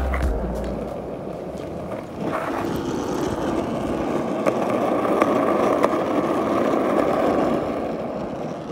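Skateboard wheels rolling over asphalt: a steady rumble that builds about two seconds in and holds until near the end, with a few light clicks from the board over bumps and cracks.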